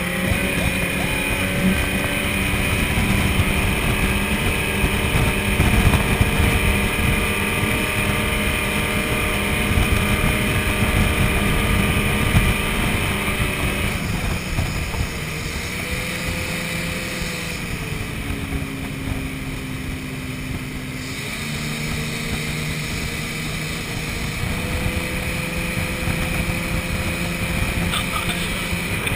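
Mastercraft 190 ski boat's 300 hp MerCruiser V8 inboard running at high towing speed over the rush of its wake and spray. About halfway through, the engine pitch sags for several seconds, then climbs back.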